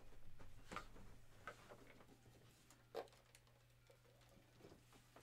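Near silence: room tone with a low steady hum and a few faint scattered clicks and taps, the loudest about three seconds in.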